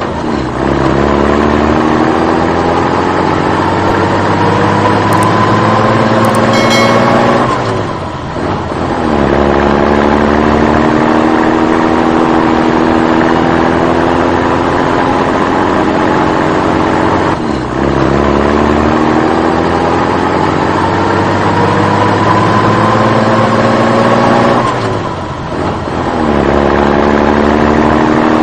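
Vehicle engine speeding up steadily in pitch for about seven seconds, then dropping back and climbing again, three times over, like a truck pulling away through its gears. A brief high-pitched tone sounds near the top of the first climb.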